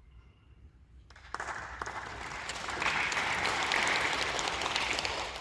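Audience applauding. The clapping starts sharply a little over a second in, builds up, then begins to ease off near the end.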